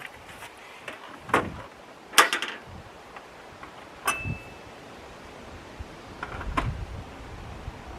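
Sharp clicks and knocks of hard parts being handled while fitting a turn signal indicator: a knock about a second in, a quick cluster of clicks a second later, another click with a brief high ring around the middle, and a last knock near the end.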